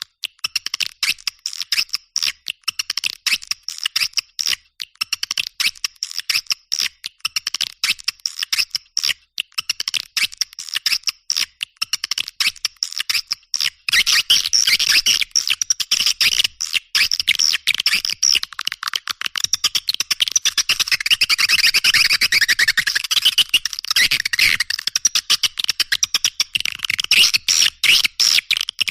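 Edited bird-lure recording of rapid, scratchy bird chirping, with everything below about 1 kHz filtered out. The chirps start out separate, then turn into a dense continuous chatter about halfway through.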